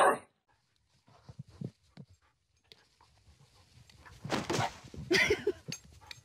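A dog barks once right at the start, the last of a series of barks. After it come quieter scuffling and knocking sounds, louder about four to five seconds in.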